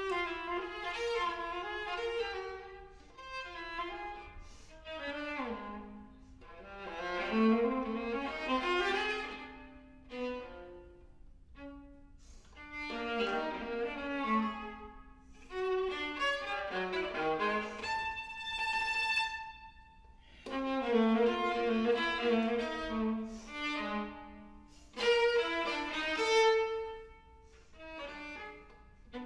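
Solo viola played with the bow, a slow melody in phrases of a few seconds each with quieter gaps between them.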